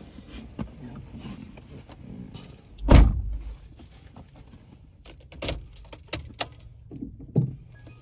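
Keys jangling and a few sharp clicks inside a parked car, with one heavy thud about three seconds in.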